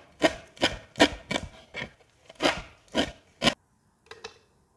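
Knife chopping fresh coriander on a wooden cutting board: about nine sharp chops over three and a half seconds, then two lighter taps near the end.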